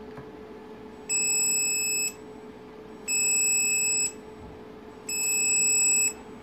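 Audi TT Mk1 instrument cluster's warning buzzer sounding three long electronic beeps, each about a second long and two seconds apart, as the cluster powers up.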